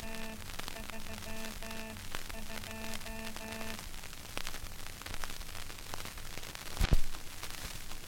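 Morse code sent as a low-pitched tone in dots and dashes, played from a worn 78 rpm shellac record, stopping about four seconds in. Record surface crackle and hiss carry on after it, with one loud click near the end.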